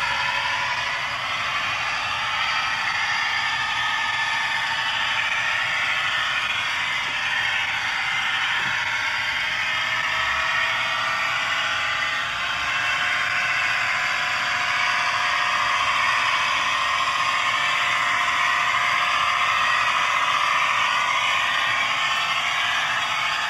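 Model train DCC sound decoder playing the diesel engine sound of an Ontario Northland Northlander (ex-TEE diesel trainset) through the model's small onboard speaker as the train runs, steady and thin with no low end.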